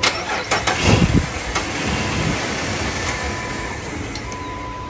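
Jeep Wrangler TJ engine being cranked and started, loudest about a second in, then running steadily. It is a hard start caused by low fuel pressure.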